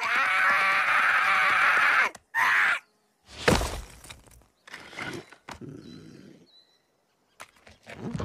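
Animated film soundtrack: a high, wavering creature squeal or chatter for about two seconds and a short second one, then a few thumps and scuffs, going almost silent near the end.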